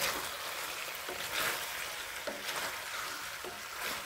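Penne pasta in masala sauce sizzling in a metal kadai while a wooden spatula stirs it, with about five scraping strokes of the spatula against the pan.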